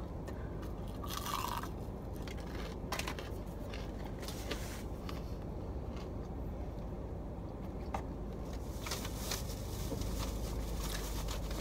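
A person chewing a bite of breaded chicken wing with wet mouth sounds and faint crunchy clicks, over a low steady hum inside a car.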